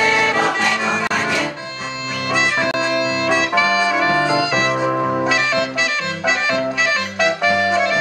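A Polish folk band playing live: accordion, saxophone and violin carrying a lively tune, with a bass drum and mounted cymbal keeping a steady beat.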